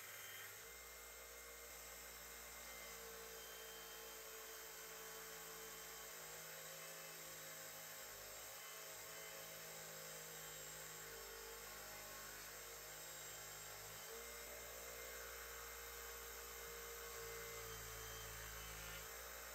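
Small benchtop belt grinder running steadily, with a steel knife blank ground against the belt. The tone shifts a few times as the pressure changes.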